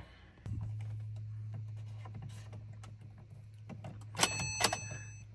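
Car key and keyring clicking and jangling in the ignition lock as the key is worked back and forth, loudest about four seconds in, over a steady low hum. The ignition switch is janky and will not easily turn on or let the key out.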